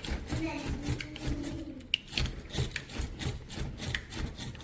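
A door and its handle rattling, with a run of irregular knocks and rubs, as the door is tugged against an Addalock portable door lock fitted in its frame.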